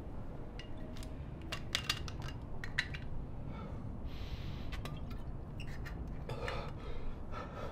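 A glass bottle being handled: a scatter of light clinks and taps, then a drink taken straight from the bottle about four seconds in, over a low steady room hum.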